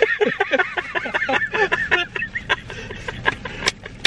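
Young men laughing hard: a rapid run of high laughs that trails off near the end.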